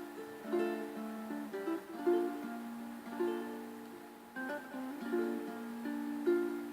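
Music: a plucked string instrument playing a light melody, note after note ringing and fading.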